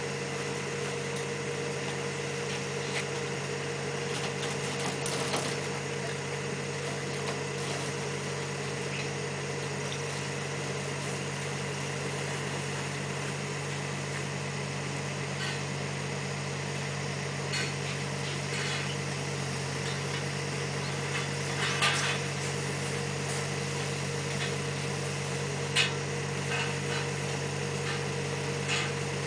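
Steady hum of machinery running at a constant pitch, with a few short sharp clinks from tool work at the tank, the loudest about two-thirds of the way through and again near the end.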